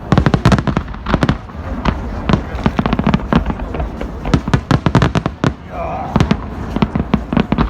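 Aerial fireworks bursting in rapid succession: a dense run of sharp bangs and cracks, several a second, over a continuous low rumble.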